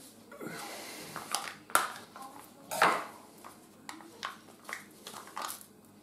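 Handling noise of a small plastic fabric-conditioner sample bottle being worked open: a run of sharp clicks and knocks, two louder ones about two and three seconds in, then lighter taps.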